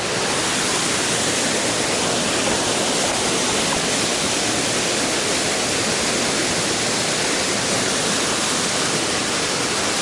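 A thin waterfall pouring down a rock face into a pool, a steady even rush of water. It is running with little water, not very strong.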